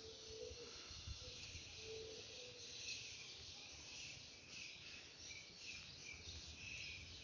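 Nearly silent: faint high chirping over a soft hiss, with soft, irregular low thumps of slow, careful footsteps on a dusty floor.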